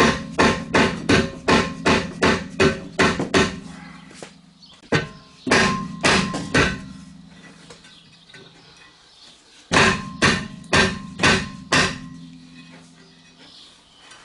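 Hammer blows on a cast-iron brake rotor seized to the hub by corrosion, coming in three quick runs of about three strikes a second. The disc rings between blows.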